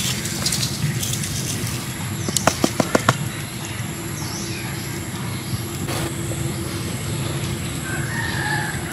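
Steady low background hum, with a quick run of about six sharp clicks or flaps a little over two seconds in and faint bird calls near the end.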